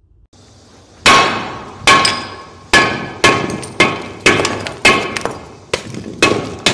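A hammer striking and breaking up the hardened white clay seal on top of a ceramic wine jar: about ten sharp knocks, roughly two a second, each with a brief ring, starting about a second in.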